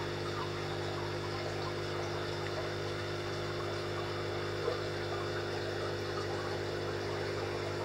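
Aquarium filter pump running with a steady hum, water trickling and bubbling over it. A single brief click just past halfway.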